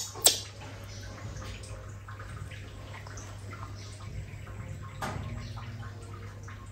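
A fleece blanket rubbing a wet baby monkey dry, with soft wet dabbing and dripping sounds over a steady low hum. There is one sharp, high sound just after the start and a shorter one about five seconds in.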